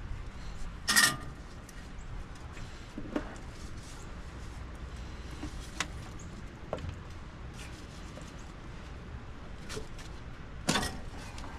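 Hand tools and metal engine parts clinking and knocking as someone works by hand inside a diesel engine bay. There are two louder knocks, about a second in and near the end, with lighter scattered clicks between.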